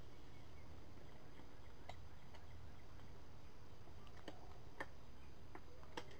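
Scattered light, sharp knocks and ticks, irregularly spaced and more frequent in the second half, as thorns are chopped off a wooden ridge pole with a machete.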